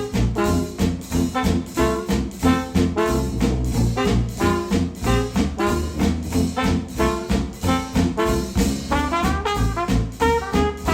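Brass-led swing-jazz music with a steady beat of about two pulses a second, played back through Polk Audio R200 bookshelf speakers powered by a NAD C 338 integrated amplifier; held horn chords stand out near the end.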